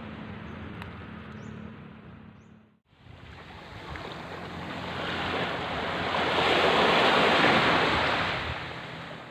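Rushing ocean surf. It breaks off briefly about three seconds in, then swells up to a loud peak and dies away again.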